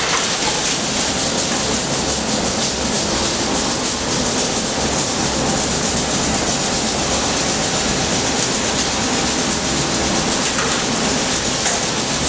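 Heavy high-torque milling cut: a large indexable-insert milling cutter cutting into a metal block under coolant spray. It is a steady, dense cutting noise with coolant hiss and a fast, even pulsing from the cutter.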